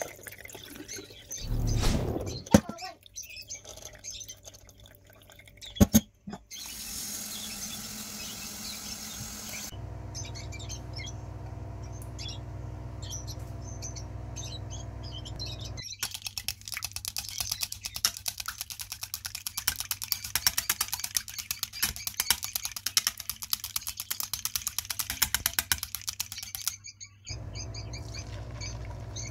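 A kitchen cooking sequence: water splashing over rice in a steel pot with a couple of sharp knocks, then small birds chirping over a low hum, then about ten seconds of dense rapid crackling and sizzling as oil heats in the wok, which cuts off near the end.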